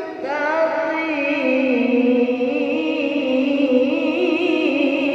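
A boy's voice in melodic Quran recitation (tilawah), holding a long ornamented note with wavering pitch that shifts slowly up and down, after a short break at the very start.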